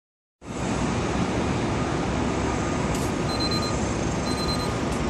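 Steady wind rushing over the microphone in an open, netted balloon gondola high above the ground. From about three seconds in, faint short beeps repeat roughly once a second.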